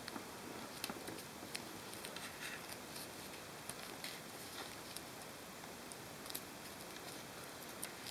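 Duct tape being wrapped and pressed by fingers around a headphone cable: faint, scattered crinkles and small clicks.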